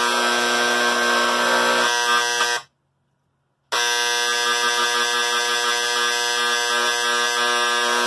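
Electric vibrating engraver buzzing steadily while pressed against a push-button switch, shaking the switch so the DeoxIT contact cleaner works through its metal snap dome and cleans the contacts. The buzz stops for about a second partway through, then resumes.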